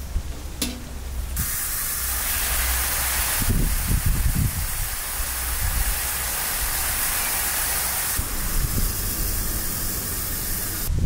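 Garden hose spray nozzle watering plants: a steady hiss of fine spray that starts about a second and a half in, grows stronger a couple of seconds later and cuts off near the end.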